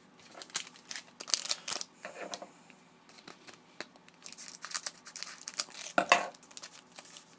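A wrapper on a 2011-12 Panini Contenders hockey card pack being torn open and crinkled, with scattered crackles and the loudest rip about six seconds in.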